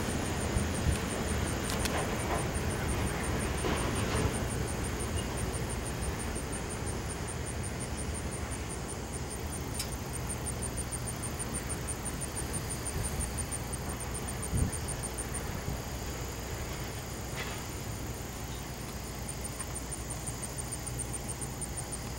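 Night insects chirping in a steady, high pulsing trill of about four chirps a second, over a low rumble that slowly fades.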